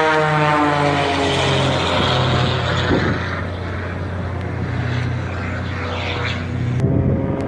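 Propeller airplane's engine passing by in flight, its pitch falling over the first couple of seconds as it goes past, then running on steadily as it recedes.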